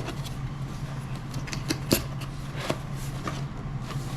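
A steady low mechanical hum, like a room fan or air conditioner, with a few short clicks and rustles of things being handled.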